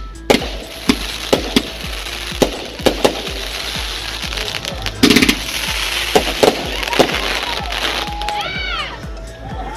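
Fireworks going off in a rapid string of sharp bangs and crackles, the loudest burst about five seconds in.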